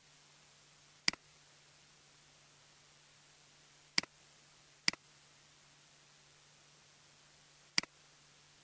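Four sharp computer mouse clicks, each a quick press and release, at uneven spacing: about a second in, two close together near the middle, and one near the end. Under them sit a faint steady hum and hiss.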